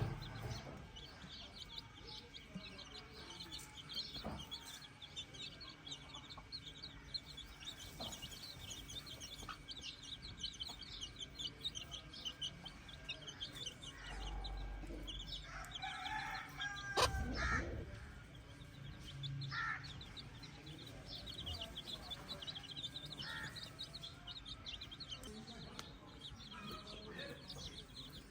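A free-range chicken flock clucking, with a rooster crowing about halfway through, over constant high chirping.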